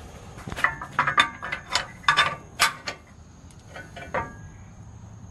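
Sharp metal clicks and clinks, about eight in the first three seconds and a couple of fainter ones near four seconds, as steel bolts and a bolt strip are handled and fitted into a pickup truck's frame rail by hand.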